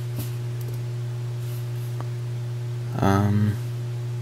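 A steady low hum throughout, with a short pitched sound of about half a second around three seconds in.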